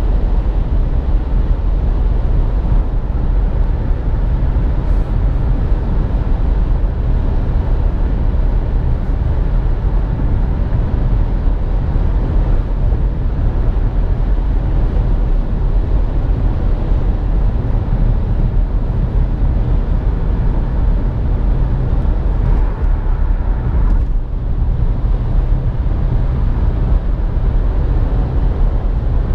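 2017 Nissan Rogue running: a steady low rumble with no change in pitch or level.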